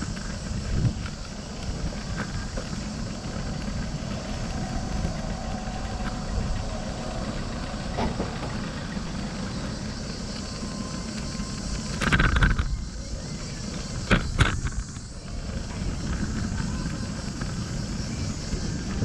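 Street traffic: cars passing over a steady low rumble, with two louder rushes about twelve and fourteen seconds in.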